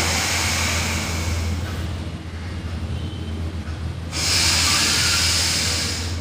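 A man's deep, audible breaths during a lying yoga breathing exercise: two long drawn-in breaths, the second one about four seconds in and louder, each taken as the arms are raised overhead. A steady low hum runs underneath.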